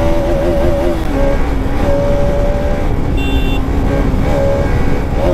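Bajaj Pulsar RS200's single-cylinder engine at high revs under hard acceleration. Its steady pitch breaks off and resumes a few times, as with gear changes. Wind rushes over the camera microphone.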